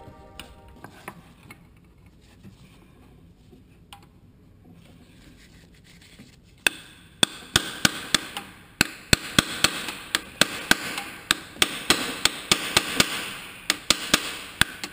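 A hand tool striking parts in a car's engine bay: a few faint clicks, then from about six and a half seconds in a run of loud, sharp knocks, irregular at two or three a second, with scraping between them.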